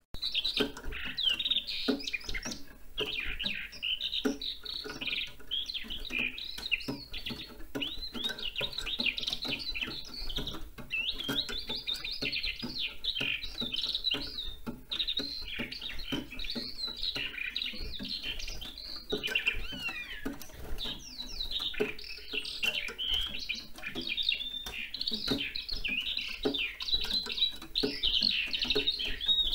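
Eurasian skylark singing its long continuous song: an unbroken stream of rapid warbles, trills and whistled glides with only the briefest pauses.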